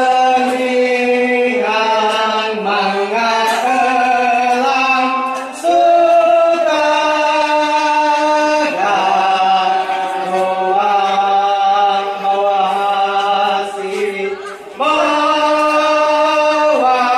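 A man chanting into a microphone in long held notes that step from pitch to pitch, phrases ending every few seconds: a ceremonial chant.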